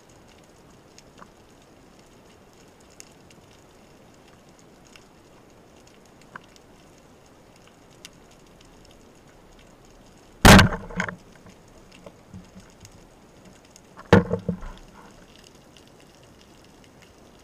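Speargun fired underwater about ten seconds in: one sudden loud clack with a short rattle after it. A second loud clattering burst follows about three and a half seconds later. Faint scattered ticks and crackles of the underwater background run throughout.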